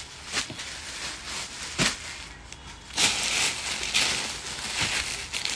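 Clear plastic garment bags crinkling as packed suits are handled. There are a few sharp clicks in the first two seconds, then a longer rustle from about three seconds in as a bag is moved.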